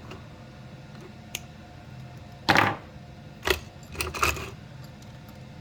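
Several sharp clicks and snips of a hand tool trimming power-supply wire ends that stick out too far, the loudest about two and a half seconds in and a quick cluster around four seconds.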